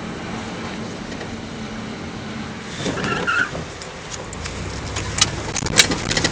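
A car engine running steadily, with a few sharp clicks and knocks in the last second or two.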